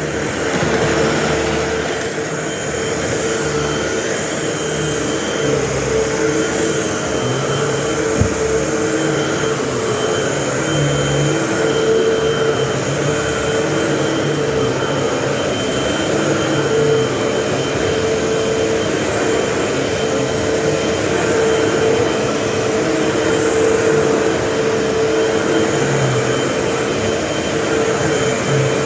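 Vacuum cleaner running steadily, its motor giving a constant whine over a rush of air, with a single brief knock about eight seconds in.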